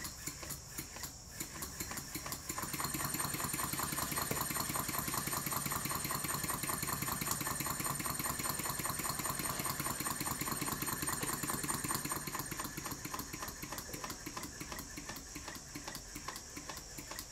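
Stuart 10H model steam engine running with a fast, even beat. It grows louder about two and a half seconds in and eases off again after about twelve seconds.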